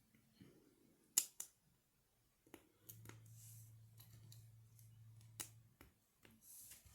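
Plastic LEGO pieces clicking and knocking as they are handled and pressed together: a sharp pair of clicks about a second in, then scattered lighter clicks.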